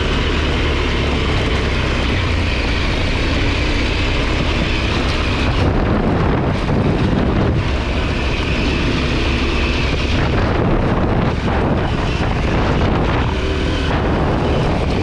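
KTM 890 Adventure R's parallel-twin engine running as the motorcycle is ridden, with wind noise on the microphone.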